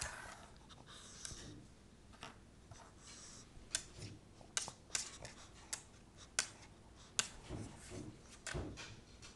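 Small dog sniffing around a dog biscuit on a tabletop, with a string of sharp clicks at irregular intervals, the loudest from about four seconds in.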